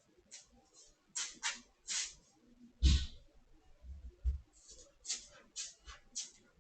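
A cat making short scratching, rustling strokes, about two a second and unevenly spaced, with one heavier thump about three seconds in.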